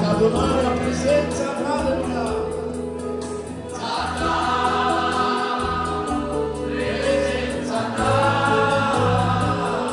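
Male vocal group singing a hymn together, accompanied by accordion and electronic keyboard over steady bass notes, amplified through PA speakers.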